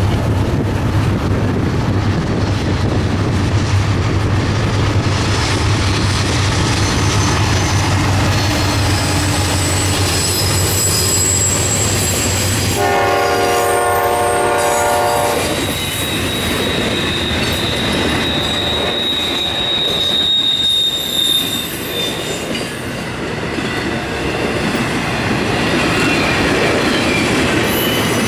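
Norfolk Southern intermodal freight train passing: a deep diesel rumble for roughly the first dozen seconds, then a train horn sounding for about three seconds near the middle. After that comes the rolling rumble and rattle of flatcars carrying trailers, with a steady high-pitched wheel squeal.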